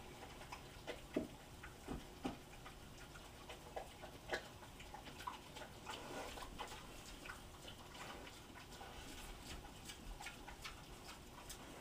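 Two pot-bellied pigs eating from bowls: faint, irregular chewing smacks and clicks, with a few louder clicks in the first five seconds.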